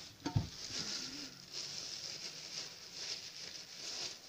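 Thin plastic sheet crinkling and rustling as it is peeled away from a flattened sheet of epoxy putty and handled, with one sharp knock about half a second in.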